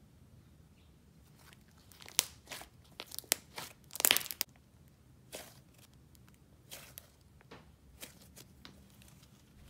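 Thick icing-and-clay slime being folded and squeezed in the hands, giving sticky sharp clicks and crackles in uneven bursts. The busiest, loudest cluster comes about four seconds in, with scattered single clicks after it.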